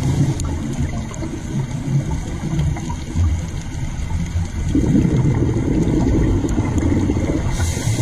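Underwater water noise: a steady low rumble and gurgle that swells about five seconds in, with a brief high hiss near the end.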